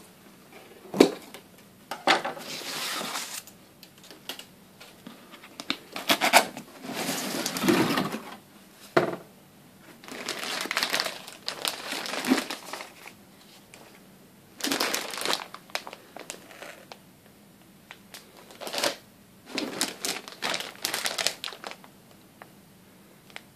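Cardboard box being unpacked by hand: a sharp snap about a second in as the plastic strapping is pulled off, then crinkling of the clear plastic wrapping on shirts and rustling of cardboard, in irregular bursts with short pauses.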